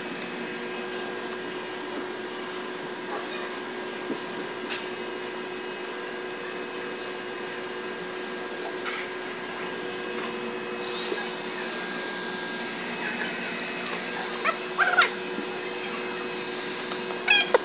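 Steady machine hum of robot arms and lab equipment, with several held whining tones and a higher whine joining about eleven seconds in. Scattered light clicks run through it, and short high squeaky chirps come twice near the end, the loudest sounds.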